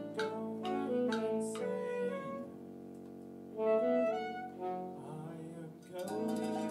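A live band playing, with saxophones, electric guitar and keyboard: short plucked notes at first, a quieter stretch of held notes, and the full band coming back in near the end.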